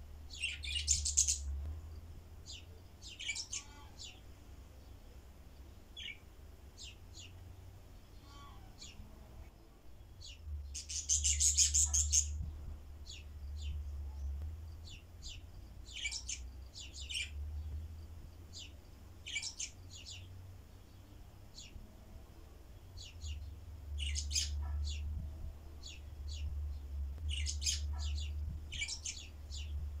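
Pet budgerigars chirping, short high calls scattered throughout, with two denser bursts of rapid chatter near the start and about eleven seconds in.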